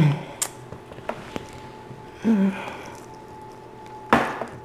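Eating sounds from the crusty baked garlic-knot bread ring: a few faint mouth clicks and a short hum, then one loud crunchy bite near the end.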